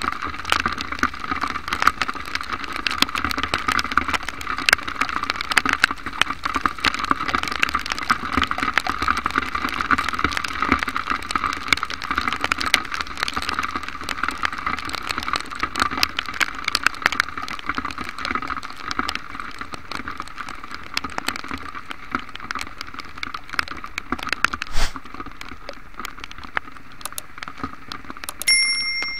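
Heavy rain pattering on a motorcycle-mounted camera while riding, a dense crackle of drops over the hiss of wet traffic, easing off in the second half, with one knock about 25 s in. Near the end a short bell-like chime from a subscribe-button animation.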